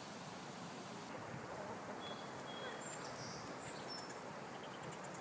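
Steady outdoor background noise with a few short, high bird chirps about two to three seconds in.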